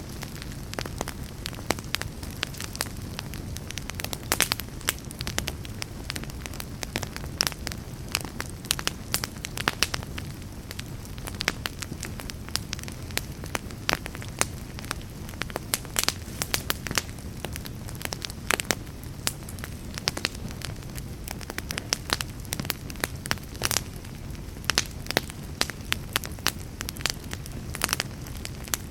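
Wood fire burning in a fireplace: a steady low rumble of flames with frequent sharp, irregular crackles and pops throughout.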